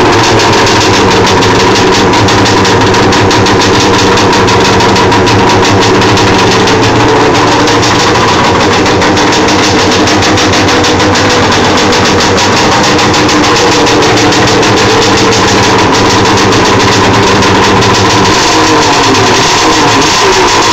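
Yamaha SRX 700 snowmobile's three-cylinder two-stroke engine idling loud and steady, its pitch wavering briefly near the end.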